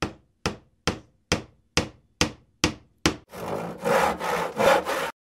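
Intro sound effect: eight evenly spaced hammer blows, a little over two a second, each dying away quickly. From about three seconds in they give way to rough, rasping strokes like a hand tool working wood.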